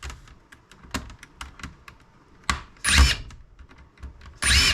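Light clicks and taps of tools on a laptop's plastic case and parts during disassembly, with two short, louder bursts of about half a second each, near the middle and at the end.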